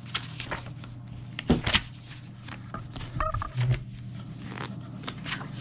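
Pages of a large softcover origami diagram book being turned by hand: paper rustling and sliding, with two soft thumps about a second and a half in as the pages are flattened. A steady low hum runs underneath.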